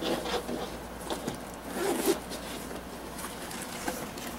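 A zipper being pulled on a padded binocular case, in short scratchy strokes over the first two seconds, with the fabric rustling as the case is handled.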